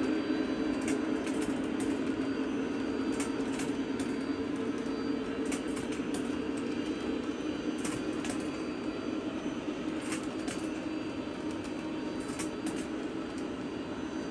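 O-gauge three-rail model freight cars rolling past on metal track: a steady rumble of wheels, with sharp clicks every second or so as the wheels cross rail joints.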